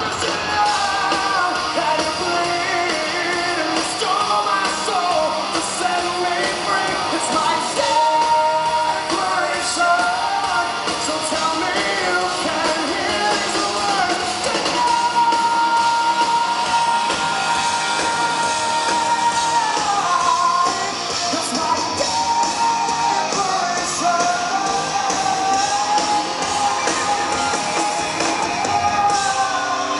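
Live rock band performance: a male lead singer sings over amplified electric guitars, holding one long note about halfway through.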